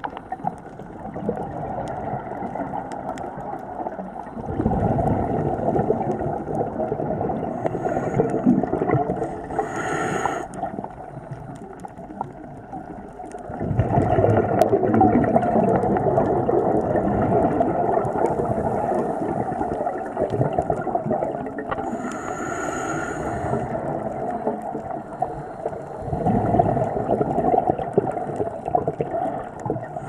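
Scuba diver breathing through a regulator underwater: three long stretches of bubbling, gurgling exhaust as breaths are let out, broken by short hissing inhalations about ten and twenty-two seconds in.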